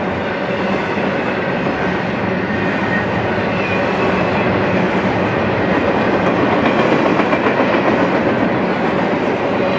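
Double-stack intermodal well cars rolling past on steel rails: a steady rumble of wheels on track with a clickety-clack, swelling slightly louder in the middle.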